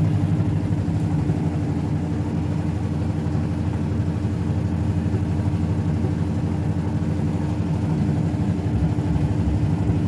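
Mademsa Fuzzy Logic top-loading washing machine in its spin cycle, the drum spinning with a steady motor hum and one held low tone.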